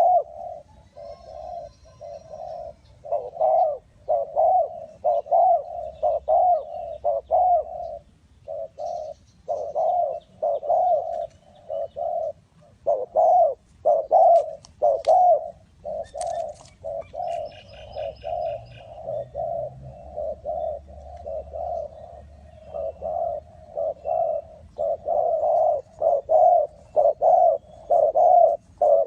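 Spotted dove cooing: a long run of short, low coo notes repeated about one and a half times a second, pausing briefly twice. Faint high chirps of another small bird come in now and then.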